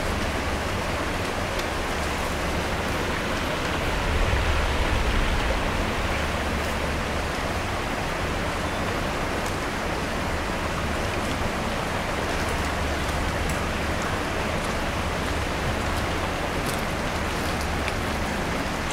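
Steady rushing of a stream's flowing water, with a low rumble underneath that swells briefly about four seconds in.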